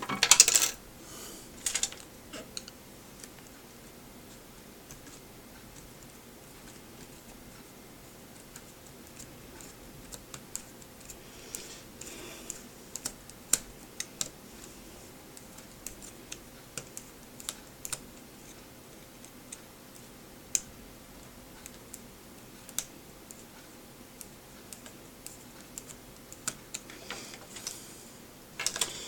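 Scattered small clicks and taps of a small screwdriver and plastic parts being handled while taking apart a pair of electronic video glasses, a few louder clicks at the start, then sparse light ticks.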